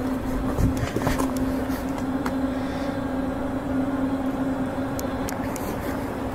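A steady low hum over a rushing background noise, with a few faint clicks.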